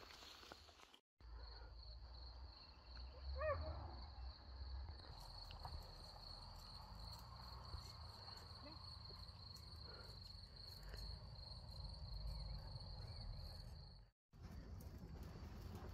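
Faint outdoor insect trilling, a steady high pulsing note, with one short animal call about three and a half seconds in and a low rumble underneath. The sound starts abruptly about a second in and cuts off abruptly near the end.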